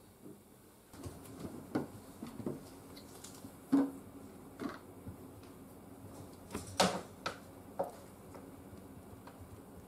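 Plastic cat-door flap clacking against its frame as cats push through: a series of light clicks and knocks, the loudest about four and seven seconds in.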